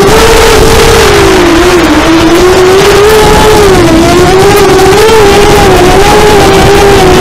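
FPV quadcopter's electric motors and propellers whining loudly, picked up by the camera on the craft. The pitch keeps rising and falling with the throttle, over a steady rushing noise.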